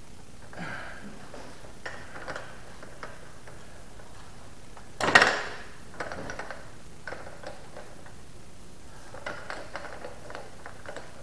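Clamshell bearing puller being tightened with a long-handled wrench on a Rotax 503 crankshaft bearing: scattered metallic clicks and ticks from the tool, with one loud sharp metallic noise about five seconds in.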